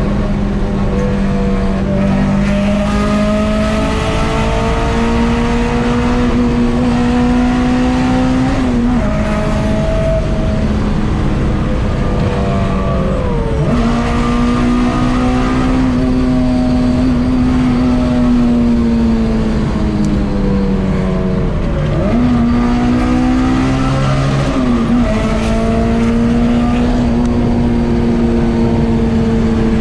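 Car engine running hard at a steady high pitch, loud throughout. The pitch dips briefly and climbs back several times, as at gear changes or throttle lifts.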